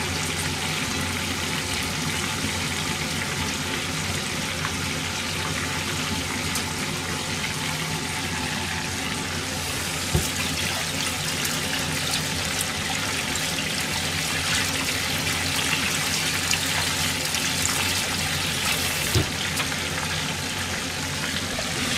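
Battered food deep-frying in hot oil, a steady dense sizzle and crackle, with a couple of light knocks.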